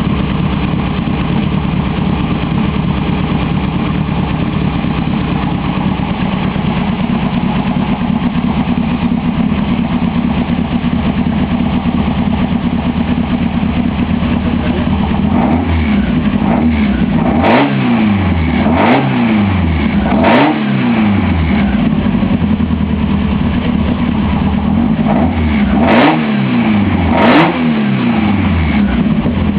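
Newly installed vehicle engine, exhausting through a freshly fitted muffler, idling steadily and then revved in a series of quick throttle blips, the pitch rising and falling each time, over the second half.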